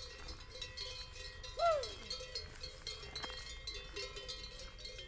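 Bells on grazing Podolica cattle clink and ring irregularly. About a second and a half in, a short call rises and falls in pitch.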